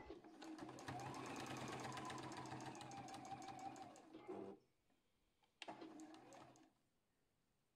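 Domestic sewing machine stitching fabric, its needle ticking rapidly and evenly over a steady motor hum. It stops after about four and a half seconds, then runs again briefly for about a second.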